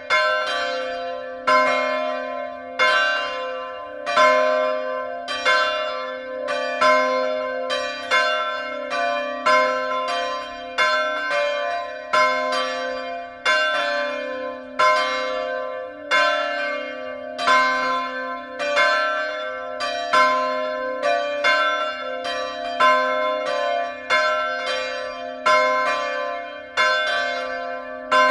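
Two church bells, bronze swinging bells cast by Petit & Fritsen in 1957 and tuned to c2 and d2, ringing together in full peal. Their clapper strikes interleave in a steady rolling pattern, each stroke leaving a long ringing tail.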